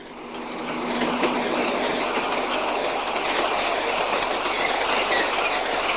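Tram rolling along its rails: a steady rumble and rattle of wheels on track, swelling over the first second.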